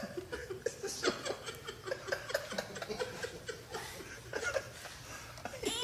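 Soft laughter: short, quick chuckles repeating several times a second.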